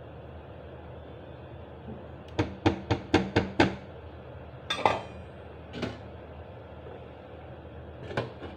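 A kitchen utensil knocked sharply against a pan six times in quick succession, then a couple of softer clatters, and a lid set down on the pan near the end, over a steady hum.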